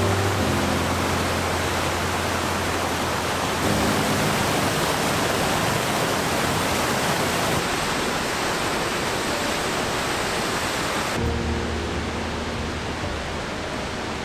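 Waterfall roaring: a loud, even rush of falling water that changes in character every few seconds as the shots change, with less hiss in the top end near the end. Background music of sustained low notes plays over it and drops out in the middle.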